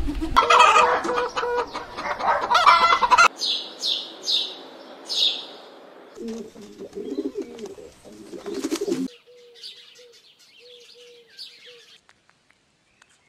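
A run of bird calls. For about the first three seconds a chicken calls loudly; then come four quick, high, falling chirps; from about six seconds in, doves coo in low repeated notes, growing fainter toward the end.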